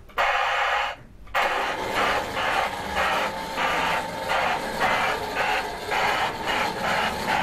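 Lionel O gauge Southern Pacific GS-4 Daylight 4-8-4 model steam locomotive running, its onboard sound system playing a steady simulated steam chuff of about three beats a second. A short burst and a brief pause come just before the chuffing starts.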